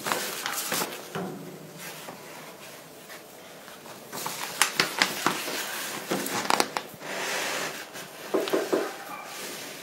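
Stiff laminated sheets and plastic laminating film being handled, making rustling and crinkling with sharp crackles and clicks. The crackles are densest about four to seven seconds in.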